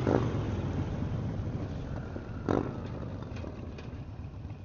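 Harley-Davidson Sportster's air-cooled V-twin running under wind and road noise, its note fading steadily as the bike rolls off the throttle and slows for a red light. A brief rush of noise about two and a half seconds in.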